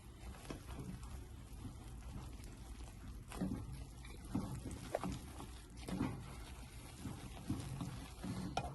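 Flour being stirred into the hot milk, water and butter in a pot to make choux paste: irregular soft scraping and thudding of the utensil through the thickening dough, with a few sharper knocks against the pot.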